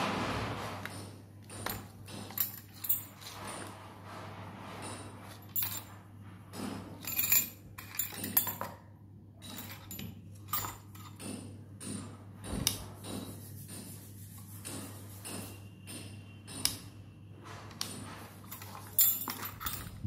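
Keys on a ring jangling and clinking against a metal godown door lock as it is picked up and turned over by hand, with scattered small knocks, over a steady low hum.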